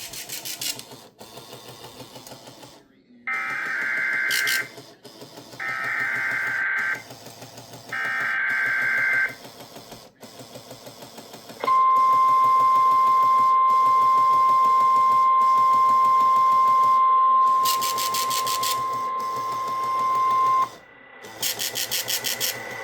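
NOAA Weather Radio alert test received on a weather radio: three identical bursts of SAME header data, each a buzzing digital screech about a second and a half long, followed by the 1050 Hz weather radio warning alarm, one steady high beep held for about nine seconds.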